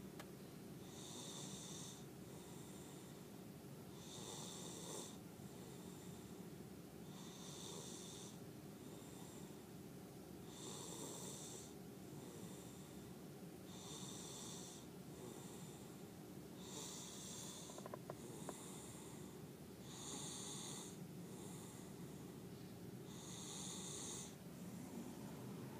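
Toddler snoring in deep sleep: a rasping snore about every three seconds, each followed by a fainter breath, over a steady low hum.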